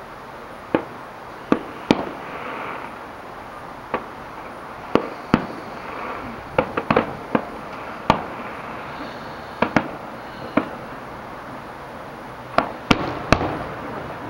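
Aerial fireworks shells bursting: a string of sharp bangs at irregular intervals, some coming in quick clusters of two or three, each with a short echoing tail, over a steady background hiss.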